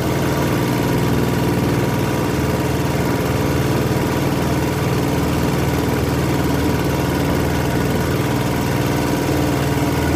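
Small 3.5 hp petrol boat engine running steadily at a constant speed, pushing the boat along.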